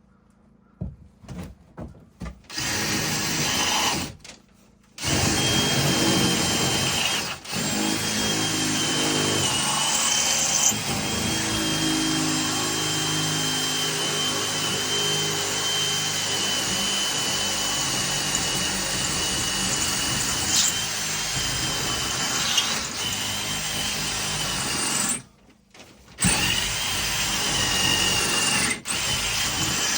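Power drill boring into wood. A few short trigger blips at first, then long steady runs, with one brief stop for about a second near the end.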